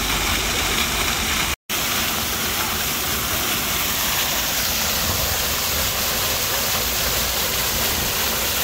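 Plaza fountain jets splashing: a steady rush of falling water, broken by a brief cut-out about a second and a half in.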